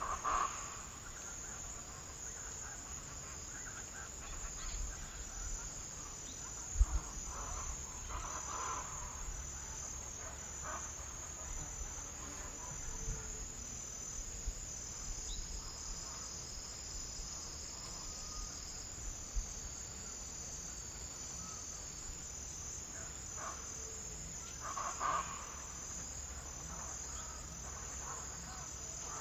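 Crickets and other insects chirping in a steady high-pitched chorus with an even pulsing rhythm, joined by a few short mid-pitched calls. A single sharp knock about seven seconds in.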